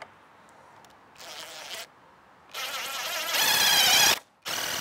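Cordless DeWalt impact driver driving screws into wood in bursts: a short spin, then a longer run about halfway through that grows loudest near its end, and another short burst at the very end.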